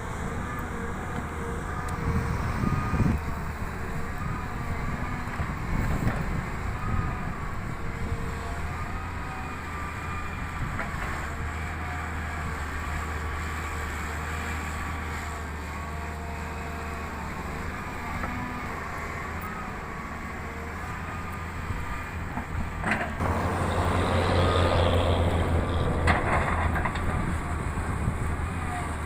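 Volvo EW160B wheeled excavator's diesel engine running steadily under a wavering hydraulic whine, with occasional knocks. About three-quarters of the way in the engine works harder for a few seconds, with a couple of sharp metallic clanks.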